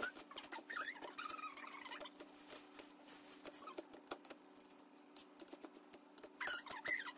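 Kitchen knife chopping lettuce and then melon on a plastic cutting board: faint, quick, irregular taps of the blade against the board.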